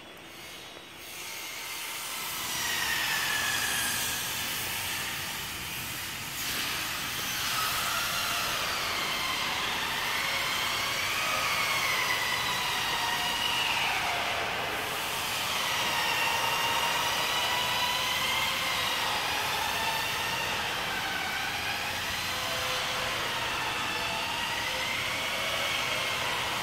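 A loud, long high-pitched squeal made of several wavering tones that slowly slide up and down, over a steady hiss. It swells up about two seconds in and fades near the end.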